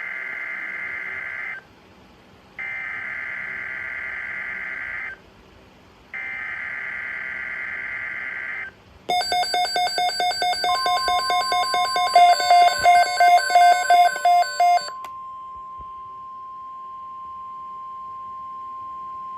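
NOAA Weather Radio emergency alert: three bursts of SAME digital header tones, a warbling data buzz about two seconds long each with a short gap between, then the long steady single-pitch warning alarm tone. For its first few seconds the alarm tone is overlapped by a loud, rapid beeping alarm of about four beeps a second.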